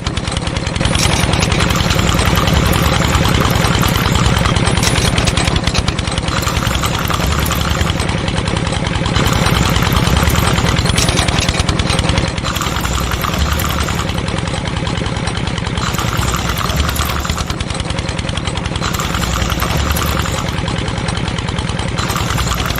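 Small tractor engine running steadily with a rapid beat. A higher rasp comes and goes every second or two.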